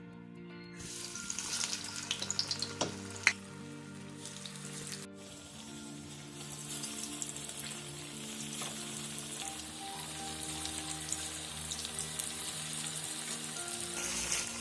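Breadcrumb-coated chicken cutlets sizzling in hot oil over a medium flame. The sizzle starts about a second in as they go into the oil, crackles for a few seconds with a sharp knock near three seconds in, then settles into a steady sizzle.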